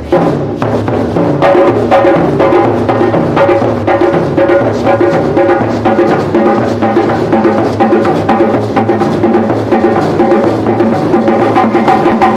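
A group of people drumming together on hand drums in a fast, steady rhythm, many strikes layered, with sustained pitched tones running underneath.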